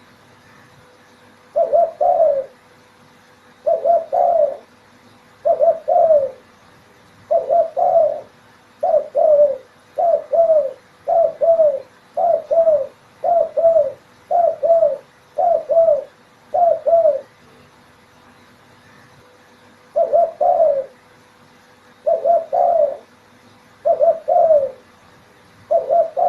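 Spotted dove (derkuku) cooing over and over: short phrases of two or three low coos, repeated about every one and a half to two seconds, with a break of about three seconds past the middle.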